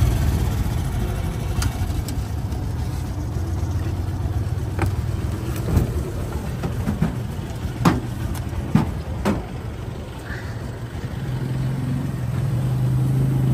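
Motor vehicle engine idling close by, a steady low hum that grows stronger near the end, with several sharp clicks or knocks over it.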